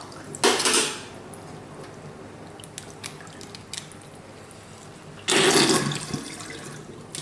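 Water splashing and dripping in a stainless steel sink as boiled crayfish are lifted out of their cooling water and handled, with small clicks of shell against the metal. There are two short louder splashes, about half a second in and about five seconds in.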